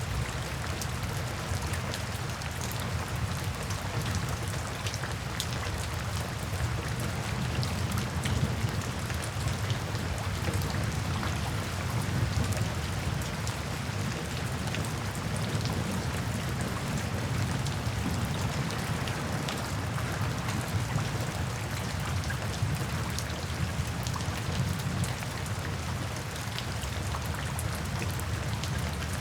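Steady rain falling, with many fine drop ticks over a constant hiss and a low rumble underneath.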